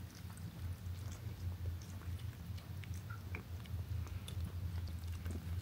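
A cat eating wet cat food from a stainless steel bowl: soft chewing and licking, heard as many small wet clicks. A steady low hum runs underneath.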